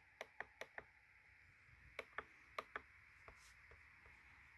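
Short, sharp clicks from someone working a computer: a quick run of four in the first second, then four more about two to three seconds in, with a few fainter ticks after, against near silence.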